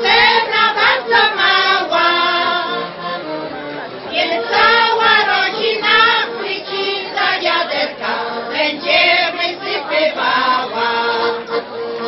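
A women's folk choir singing together unaccompanied, with a brief lull about three seconds in before the voices come back in.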